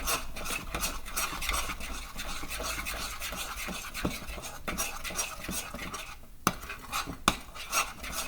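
A utensil stirring thick pineapple cake batter in a mixing bowl, with quick, repeated scraping and clinking against the bowl as the lumps are worked out. Two sharper knocks come a little past halfway.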